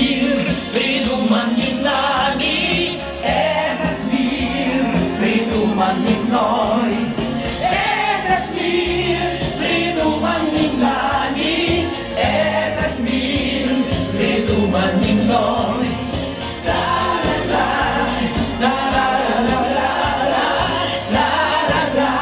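A woman singing a song into a microphone over electronic keyboard accompaniment, amplified through a PA speaker.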